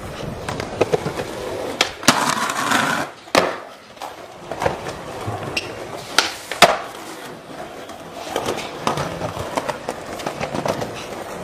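Skateboard wheels rolling on concrete, broken by several sharp wooden clacks of the board popping and landing; the loudest comes a little past the middle.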